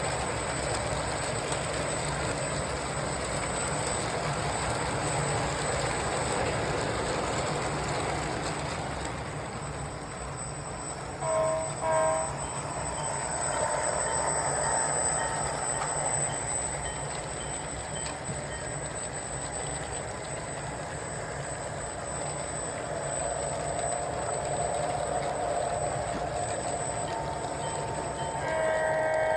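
3D printed model train running along its track, a steady rattling rumble of its motor and wheels. A horn gives two short toots about eleven seconds in and sounds again near the end.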